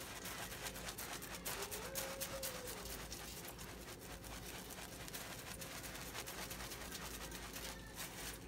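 Dried herb seasoning shaken from a shaker bottle onto raw whole chickens in a roasting pan: a faint, steady patter of rapid ticks and rattles.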